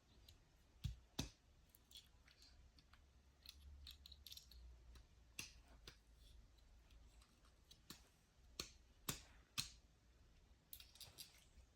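Near silence with faint, irregular clicks and light taps, a handful scattered across the stretch.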